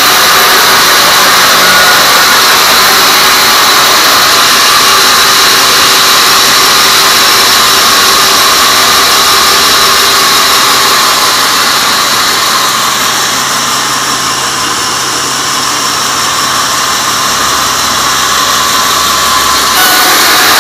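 Band sawmill blade cutting lengthwise through a teak log: a loud, steady whine and rush of the saw in the wood. It eases off a little past the middle and comes back up near the end.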